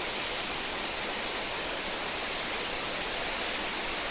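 Steady rushing of a large waterfall, Marokopa Falls, heard from a viewpoint at a distance.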